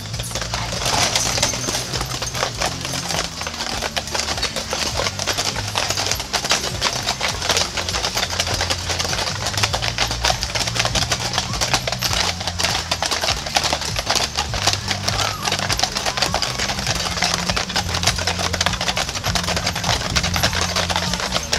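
Team of Clydesdale draft horses walking on asphalt, their shod hooves clip-clopping in a dense, continuous clatter of many overlapping strikes.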